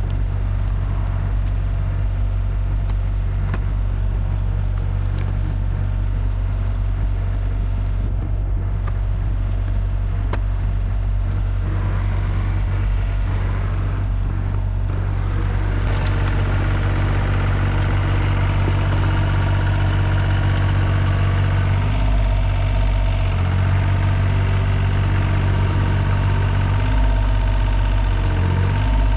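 Takeuchi TB235-2 mini excavator's diesel engine running steadily. About halfway through, its note grows fuller, and it shifts briefly twice near the end.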